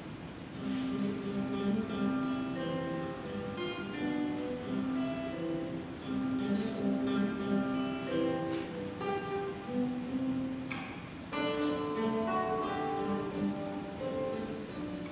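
Solo nylon-string classical guitar played fingerstyle: a melody of plucked single notes over bass notes, with a few brisk strummed chords ringing out, about a second in, past eight seconds and near eleven seconds.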